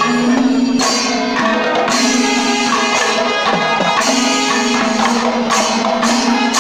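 Panchavadyam, the Kerala temple percussion ensemble, playing: timila drums and ilathalam cymbals under held notes from kombu horns, which break off and start again every second or two.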